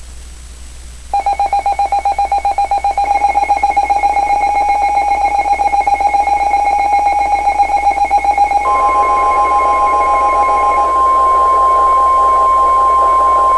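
A weather alert radio's electronic alarm beeps in a rapid, even pulse of several high tones. About nine seconds in, the steady 1050 Hz NOAA Weather Radio warning alert tone joins and holds, while the pulsing tapers off. This tone marks a warning-level alert about to be read out.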